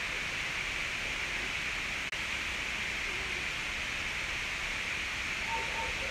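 Steady outdoor background hiss, strongest in a high band, with no distinct event; it cuts out for an instant about two seconds in.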